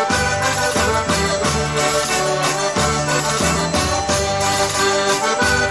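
Portuguese folk dance music with a steady, regular beat.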